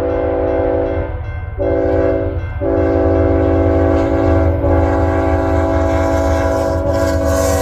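BNSF locomotive air horn sounding a long chord of several notes, cut by two short gaps about a second and about two and a half seconds in, over the low rumble of the passing train.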